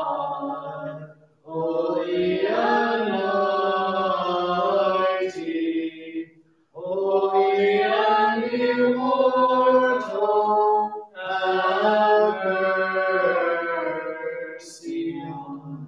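Byzantine liturgical chant sung by voices, in long sustained phrases with brief breaks between them.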